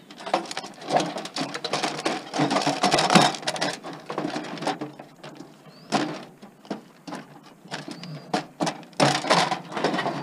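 Clattering and clicking of screws and metal computer parts being handled while a desktop computer is taken apart: a dense run of rattles for the first few seconds, a single sharp knock about six seconds in, and another burst of clatter near the end.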